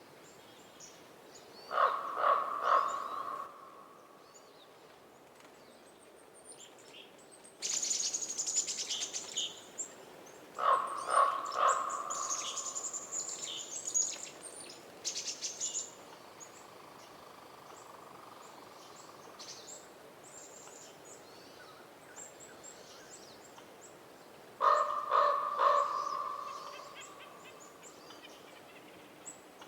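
Common raven calling: three bouts of harsh croaks, each a quick run of three or four notes, about a second in, near the middle and near the end. High chirping of smaller birds goes on behind, busiest in the middle stretch.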